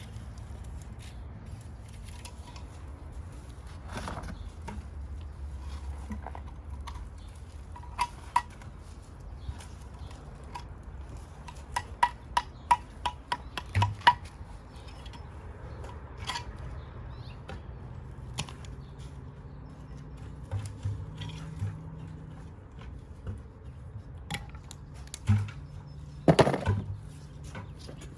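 Scattered clicks and knocks of hand work on a sewer pipe, hard objects being handled and set down, with a quick run of taps about twelve seconds in and a louder clatter near the end, over a low steady hum.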